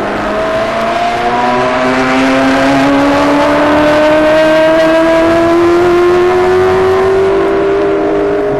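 1966 Formula One racing car engine at full throttle, its note rising steadily in pitch over about eight seconds as the car accelerates, with no gear change heard.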